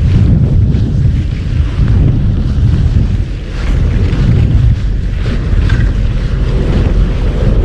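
Wind buffeting the camera's microphone on a boat at sea: a loud, steady low rumble with the sea and waves underneath.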